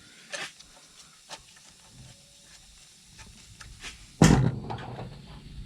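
Faint scattered clicks of hands and tools working at an ATV's heel guard to take off the old foot nets, then a sudden loud thump about four seconds in, followed by low rumbling handling noise.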